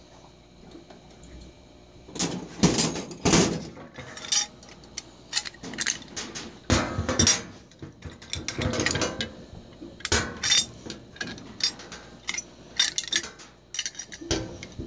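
Irregular metallic clinks and clatters as a brass CO2 regulator and an open-end wrench are picked up, turned over and knocked against a hard surface while the wrench is fitted to the pressure gauge's fitting. The clatters come in bursts from about two seconds in.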